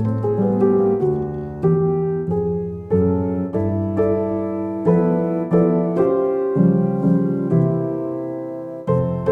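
Background music: solo piano, with notes and chords struck about once or twice a second, each ringing out and fading.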